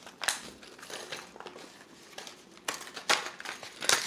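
Rustling and light clicking as a spinnerbait's wire and blades are handled, with a few sharper scrapes that grow louder near the end.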